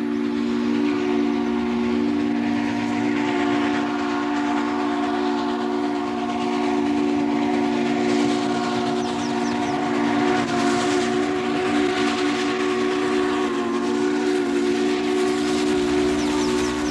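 Steam locomotive's whistle blown in one long, steady chord of several tones, with steam hissing beneath it as the engine runs past.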